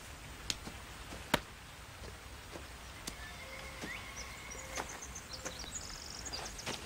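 A few sharp knocks of baseball pitching practice against a mattress target, the loudest about a second in, with faint bird chirps and trills behind them.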